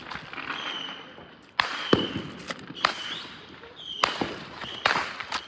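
Fireworks going off: about ten sharp, irregularly spaced bangs and pops, the loudest about two seconds in, with brief high whistle-like notes between them.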